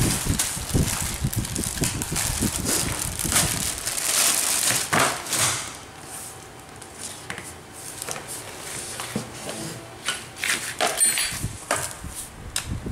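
Plastic bags crinkling and rustling as parts are handled and unwrapped: busy for the first six seconds or so, then sparser, quieter crackles.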